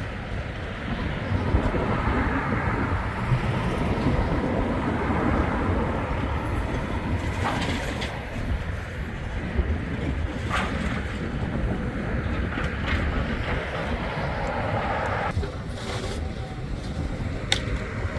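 Steady outdoor rumble of vehicles or heavy machinery, with a few short sharp knocks.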